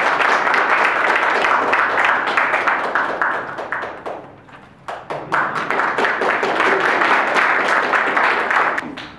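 Audience applauding with hand clapping. The clapping dies away about four seconds in, starts up again a second later and stops near the end.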